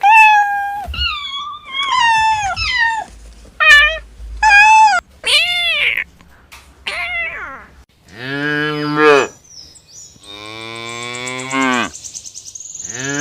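Young farm animals calling one after another: a run of high, wavering cries in the first half, then several lower, longer calls.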